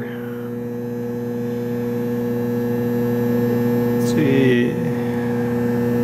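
Schneider Electric Conext XW6848+ off-grid inverter buzzing steadily under a heavy load of about 5.5 kilowatts. A short click and a brief voice sound come about four seconds in.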